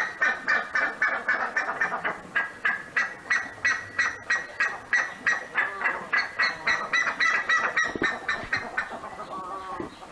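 Buff-necked ibis (curicaca) calling: a fast series of loud honking notes, about three or four a second, that thins out and softens near the end.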